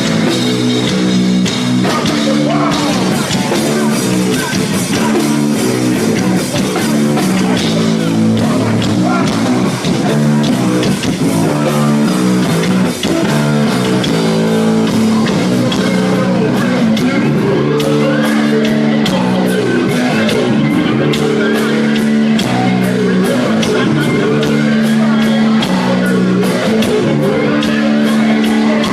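Rap-rock band playing live, loud and steady: a vocalist over electric guitar, bass and a steady drumbeat.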